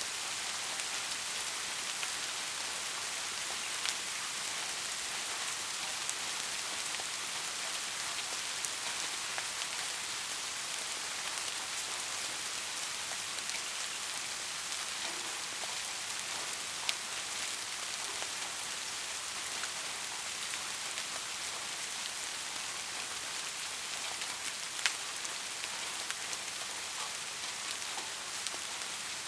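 Steady soft rain: an even hiss of rainfall with scattered individual drops ticking, a few louder drips about four, seventeen and twenty-five seconds in.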